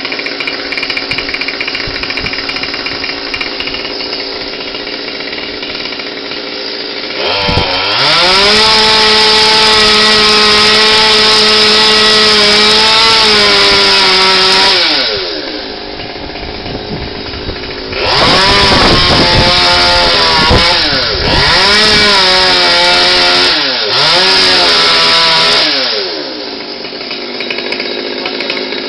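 Two-stroke chainsaw idling, then opened up to full throttle four times with idling between: a long run of about seven seconds, then three shorter ones close together. It is cutting through a silver maple stem.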